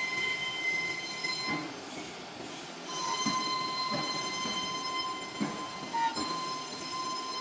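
CNC foam cutting and milling machine running on EVA foam, giving a steady high-pitched whine with overtones over a rough working noise. The lower tone of the whine drops out briefly about one and a half seconds in, then comes back.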